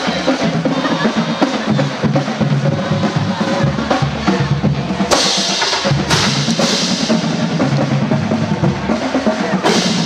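Marching band drumline playing a loud drum cadence of snare and bass drums, with a few cymbal crashes.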